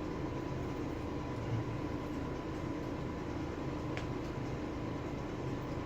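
Steady background hum and hiss, with a faint steady whine and one small click about four seconds in.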